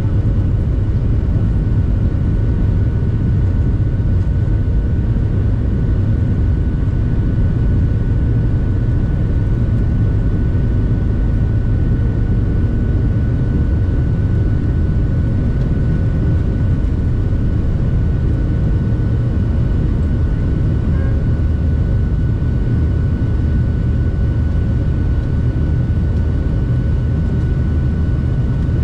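Cabin noise of a Boeing 737-700 in flight: the CFM56-7B engines and rushing air make a steady, loud low rumble with a faint steady whine above it.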